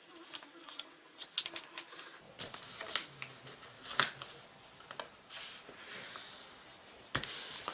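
A sheet of paper being folded and creased by hand: rustling and sliding, with several short sharp crackles as the folds are pressed flat.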